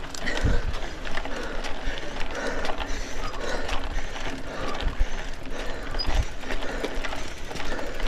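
Bicycle drivetrain ticking, a rapid run of small clicks, while climbing a slope of about 19 percent.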